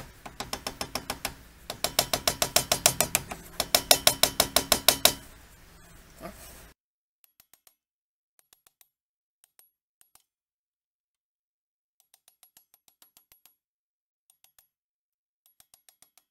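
Hammer rapidly tapping a steel drift to seat a grease seal into a car's rear wheel hub: three runs of quick, ringing metal taps, about seven or eight a second, in the first five seconds. After that, only short runs of faint light taps.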